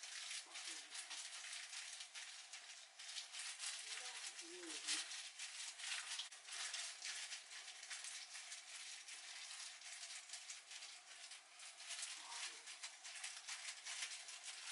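Rapid dry scratching of a small dye brush scrubbing through beard stubble. A dove coos a few times in the background, around four and twelve seconds in.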